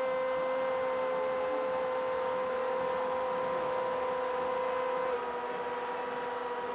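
A football commentator's long, unbroken goal cry, 'gooool', held on one steady note over a haze of crowd noise; the note dips slightly in pitch and level about five seconds in.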